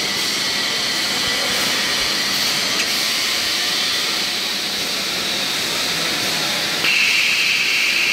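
ICM Makina FLEX PRO 2800 S toilet-paper rewinder running at speed, a steady mechanical whir and rush of rollers and paper web. Near the end a louder high hiss starts abruptly and holds.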